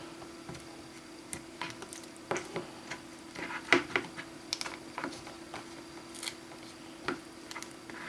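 Small repair tools clicking, tapping and scraping against the parts of an iPhone 6S during a screen replacement: irregular light clicks with no steady rhythm, over a faint steady hum.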